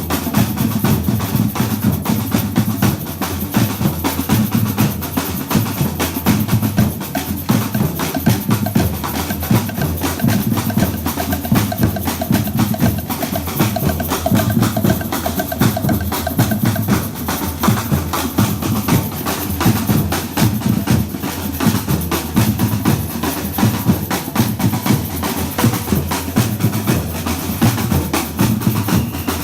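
Batucada drum ensemble playing a steady, driving samba rhythm: deep bass drums pulsing under dense snare strokes and sharp, clicking high percussion.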